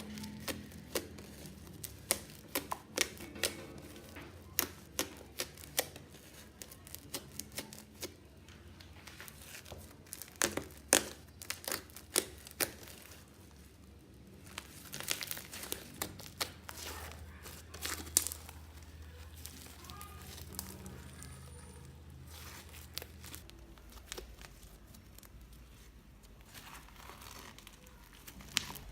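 Crunchy bubbly slime being squeezed and pressed by hand, crackling and popping in quick, irregular sharp clicks. The pops come thickest in the first half and thin out later.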